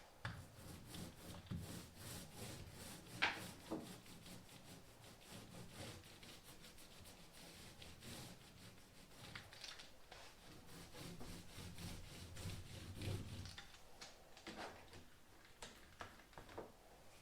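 Faint rubbing and scraping on the dinghy's coated hull, with a few light knocks, the sharpest about three seconds in.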